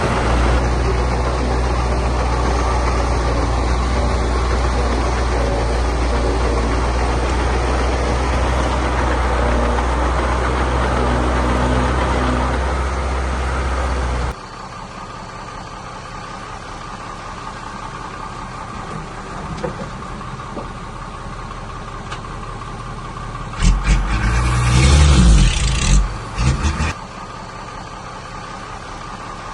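Heavy diesel engine of earthmoving machinery running steadily. About halfway through it cuts abruptly to a quieter idling engine. Near the end comes a loud burst of low rumbling and knocks lasting a few seconds.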